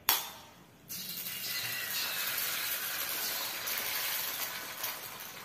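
An egg frying in a dry, oil-free stainless-steel wok: a brief sharp crack at the start as the shell is broken, then about a second in a steady sizzle starts as the egg hits the hot metal.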